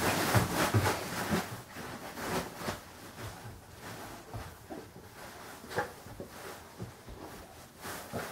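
Bean bag bed's fabric and filling rustling and shifting as a Boston terrier pushes into and burrows under it, loudest in the first second or so. Softer scattered rustles follow, with a couple of short sharper sounds near the end.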